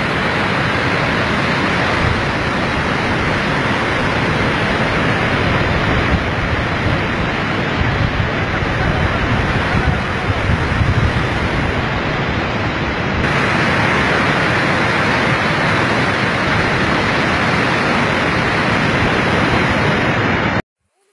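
Loud, steady rush of fast-flowing floodwater, a muddy torrent pouring down a landslide channel, cutting off abruptly near the end.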